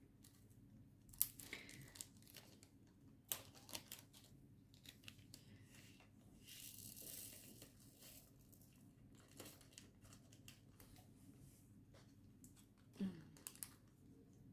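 Faint crinkling and rustling of small plastic zip bags of diamond painting drills being handled and opened, with a few sharp plastic clicks and a longer rustle about halfway through as a bag is tipped out.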